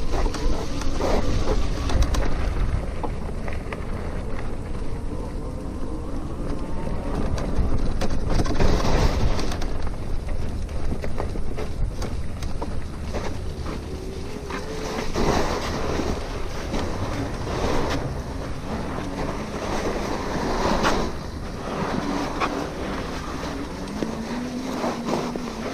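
RadMini electric bicycle riding along: wind rushes over the microphone, under a faint tone that slowly rises and falls in pitch.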